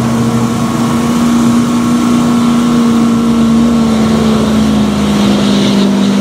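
Ford Super Duty pickup's diesel engine running hard under load as it drags a weight-transfer pulling sled over dirt. It is a steady drone whose pitch sags slightly about four seconds in, as the engine is dragged down by the sled.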